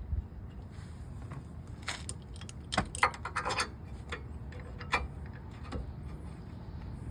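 Scattered metallic clicks and clinks from hand tools and bolts being worked while new brake caliper bolts are fitted, with a quick run of clicks about three seconds in, over a steady low rumble.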